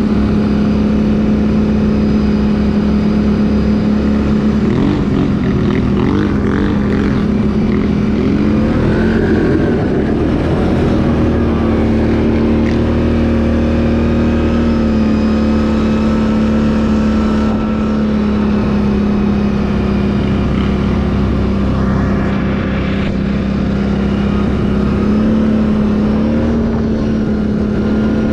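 Can-Am ATV engine running under steady throttle while riding, its pitch holding nearly constant with small rises and dips.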